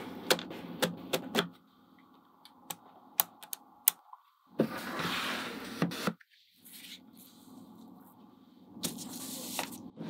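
Small magnetic balls clicking as they snap onto one another: a quick run of sharp clicks, then scattered single clicks, with a couple of stretches of softer rustling.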